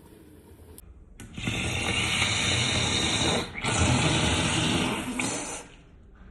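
A person blowing their nose hard: two long, noisy blows of about two seconds each, with a brief break between them.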